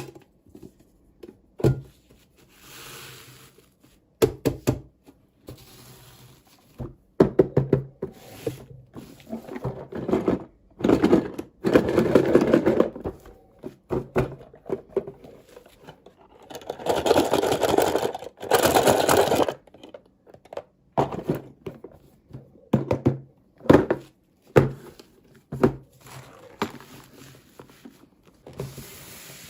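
Toy unboxing handling noise: plastic packaging and small toy pieces knocked, tapped and rustled, with irregular knocks and clicks and two longer stretches of rustling in the middle.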